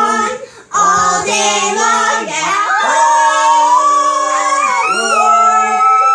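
Children's voices singing long, held notes that slide up and down between pitches.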